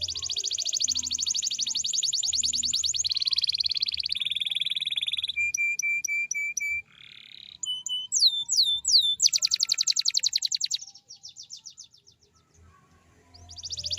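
Domestic canary singing: long, fast rolled trills, a short run of about five repeated notes, a few downward-swooping whistles, then another fast trill that fades out. After a pause of about two seconds a new roll begins near the end.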